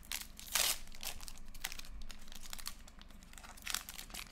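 Plastic wrapper of a Panini Prizm trading card pack crinkling and tearing as it is pulled open by hand, a run of sharp crackles. The loudest burst comes about half a second in, with another near the end.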